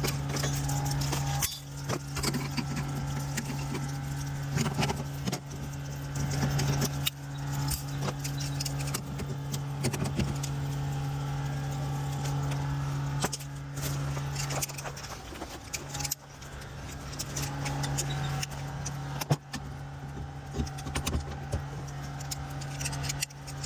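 Metal clinks and rattles of hand tools being handled, over a steady low hum that stops about fifteen seconds in.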